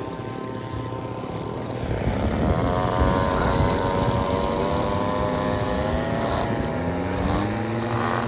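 Several radio-controlled scale model airplanes flying, their engines droning and rising and falling in pitch as they pass and change throttle, louder from about two seconds in.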